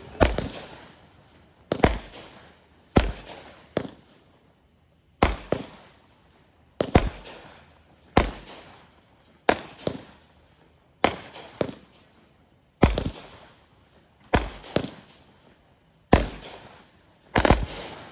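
Consumer fireworks going off: a string of loud bangs about every second or so, some in quick pairs, each trailing off in an echo.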